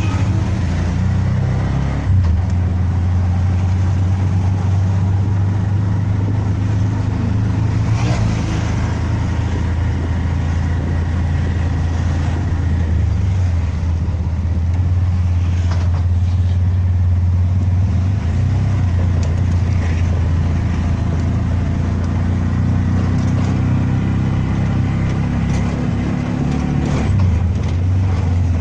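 A motor vehicle's engine running at a steady low note while driving along, with a few short knocks from the ride about 2, 8, 16 and 27 seconds in.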